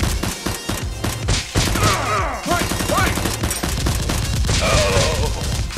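Rapid, continuous automatic gunfire sound effects, dubbed over toy blasters being fired, with several overlapping bursts.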